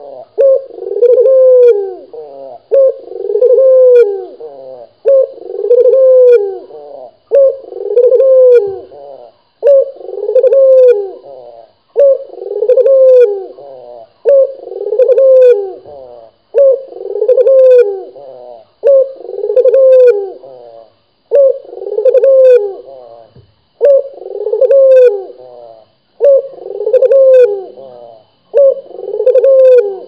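Barbary dove (burung puter) cooing over and over close to the microphone, a steady run of rolling coos repeating about once every second and a half.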